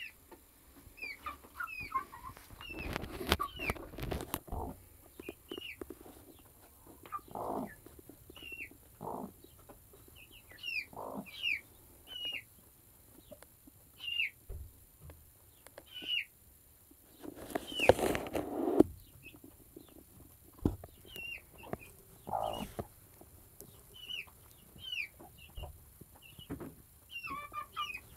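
Newly hatched chicks peeping under a broody yellow Cochin hen: many short, high chirps that slide downward, with a few low clucks from the hen. Loud straw rustling a few seconds in and again about eighteen seconds in.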